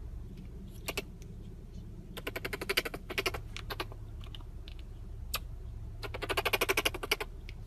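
A small pet monkey gnawing on a tennis ball: two runs of rapid clicking, each lasting about a second, with a few single clicks between, over a steady low hum inside the car.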